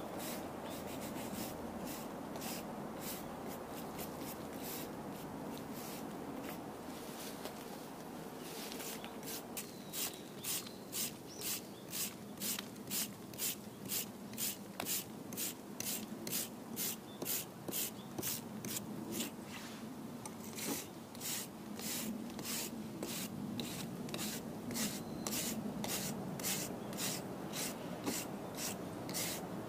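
Wire brush scrubbing moss off a concrete block wall: continuous scraping at first, then regular back-and-forth strokes, about three every two seconds, from about nine seconds in.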